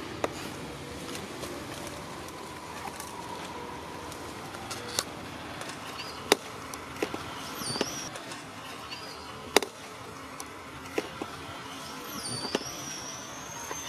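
Outdoor ambience: a steady background hiss with a few sharp clicks and snaps, and several short, high, thin squeaky calls that bend in pitch, the longest near the end.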